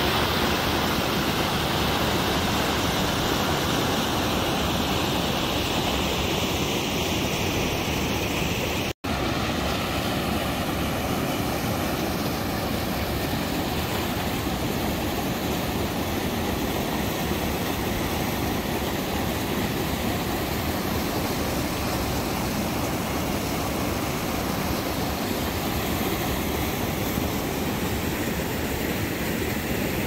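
River water pouring over a low weir and churning through white-water rapids below it, a steady rushing roar with a momentary gap about nine seconds in.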